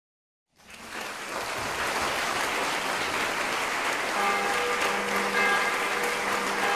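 A moment of silence, then dense applause. About four seconds in, sustained music notes join over the clapping.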